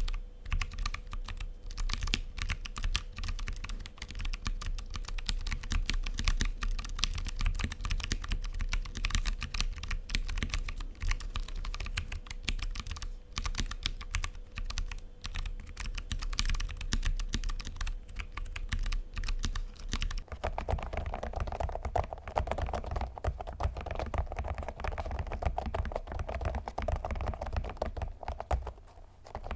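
Continuous typing on an Abko AG75 mechanical keyboard with brown tactile switches, a fast run of crisp keystrokes. About twenty seconds in it changes to the red linear-switch version under a thick keyskin cover, which muffles the keystrokes into duller, softer taps.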